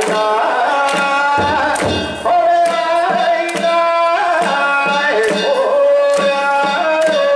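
Danjiri festival music: a taiko drum and hand-held kane gongs strike a beat, under a held, sliding melody line.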